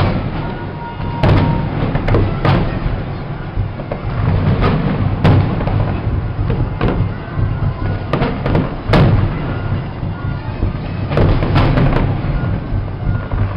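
Fireworks display: about a dozen loud bangs of bursting shells at irregular intervals, some in quick succession, over a continuous low rumble.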